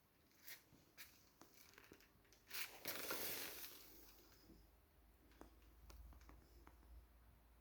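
Faint clicks from a Siemens washing machine being operated, then a short rushing hiss about three seconds in, after which a low steady hum starts up.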